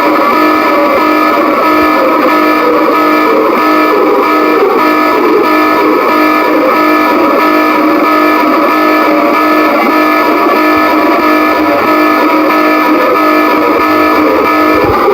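Mock emergency alert alarm: a loud, unbroken drone of several held tones layered with distorted, electric-guitar-like music.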